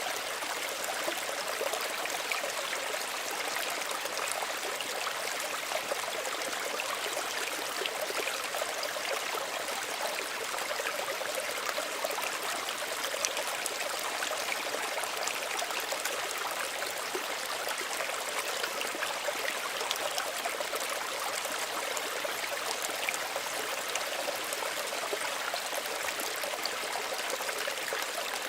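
Small stream running steadily over stones, an even rushing with fine trickling and splashing detail.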